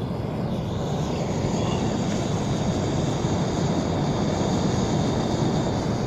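Camping stove burner on a screw-on gas canister burning at full flame, a steady hiss.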